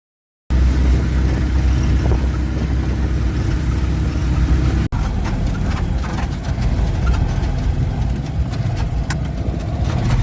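A motor vehicle running, a steady low rumble with faint clicks and rattles over it, broken once by a brief gap about five seconds in.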